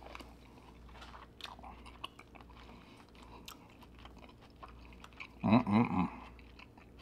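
Close-miked chewing of seafood boil, with small clicks and smacks of the mouth. About five and a half seconds in, a short hummed 'mm' of enjoyment is heard.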